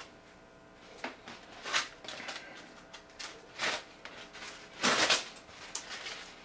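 Dark Ecuador wrapper tobacco leaf rustling and crinkling as hands pull it open and fold it, in several irregular swishes, the loudest about five seconds in.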